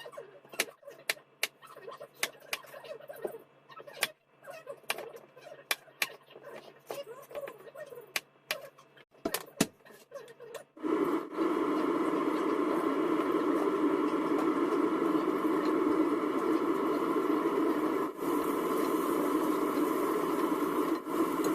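A knife knocking irregularly on a cutting board while zucchini is cut. About eleven seconds in, a steady loud sizzle starts as it goes into a hot oiled pan to fry.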